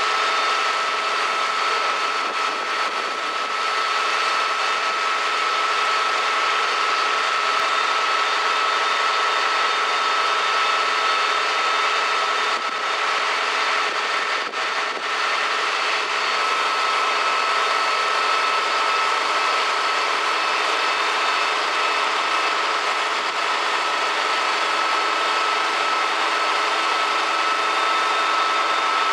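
Fire apparatus engine and pump running steadily at a fire scene, a constant mechanical drone with a steady high whine over it.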